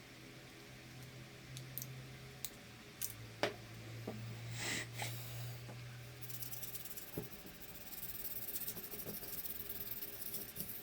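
Fine sandpaper rubbed quickly back and forth over the contact tracks of a washing machine control board, a dry scratching rasp that starts about six seconds in, after a few clicks and handling knocks; the sanding cleans the tracks to cure an intermittent contact. A low steady hum runs under the first seven seconds.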